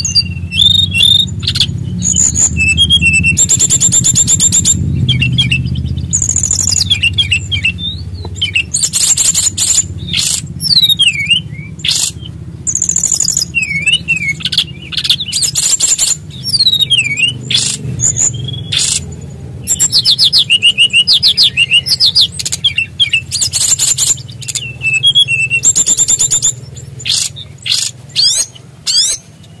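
Brown-chested jungle flycatcher (SRDC) singing a loud, varied song: fast rolling trills, rattling phrases and high whistled slurs one after another with short gaps, over a steady low hum.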